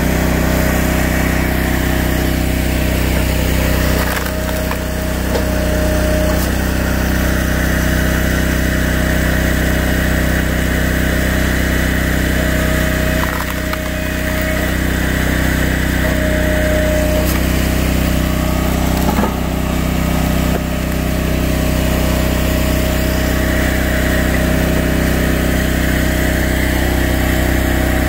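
Small engine of a hydraulic log splitter running steadily while it splits red oak rounds, with a higher whine that comes and goes and a few brief dips in level.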